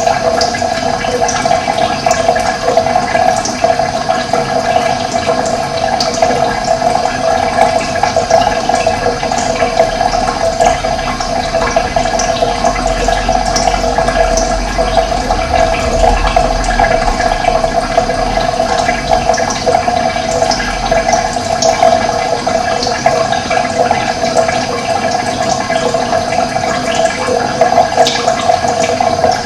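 Steady rush of running water, an even churning flow with no pauses. Small birds give brief high chirps scattered through it.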